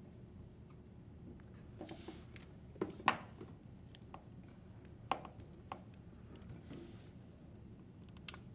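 Quiet handling sounds as channel lock pliers squeeze a spring hose clamp and the rubber fill hose is worked off the plastic spout of a dishwasher water inlet valve: a few scattered clicks and short scrapes, the sharpest about three seconds in and another near the end.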